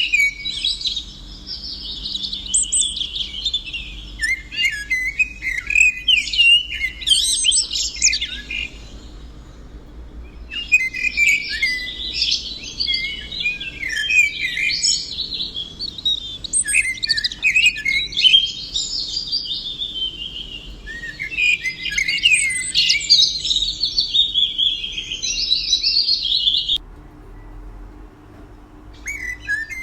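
Songbird singing long, fast, warbling and trilling phrases. The song breaks off for about a second and a half a third of the way in, then resumes and cuts off abruptly a few seconds before the end.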